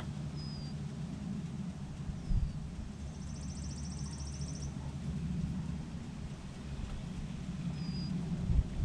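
Steady low wind rumble on the microphone, with a few short high bird chirps and a high, rapid bird trill lasting about a second and a half around three seconds in.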